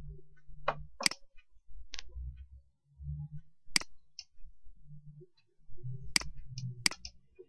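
About six sharp single clicks from working a computer, spaced irregularly, with a faint low hum between them.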